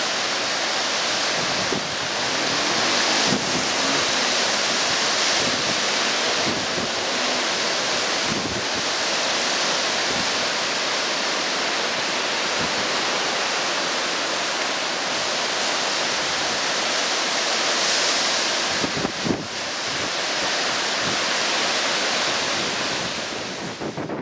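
Sea surf breaking and washing ashore in a steady rushing noise, with wind buffeting the microphone in a few gusts late on.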